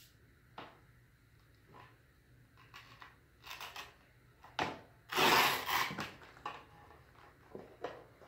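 Hands rubbing and scraping along a plastic armor piece while pressing a freshly glued Velcro strip into place. Scattered short rustles, with the loudest a rough scraping rub of about a second in the middle.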